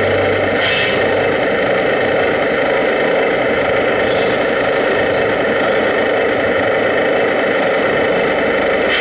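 Steady engine-like running of a 1/16 scale radio-controlled hook-lift truck as its hydraulic hook arm pulls a loaded container back onto the chassis.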